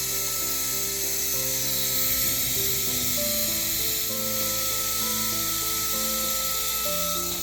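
Background music: a slow melody of held notes that step from pitch to pitch, over a steady hiss.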